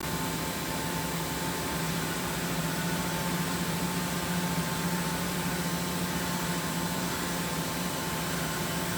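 Steady mechanical hum over an even hiss, with a low drone and a fainter higher tone that never change: running machinery.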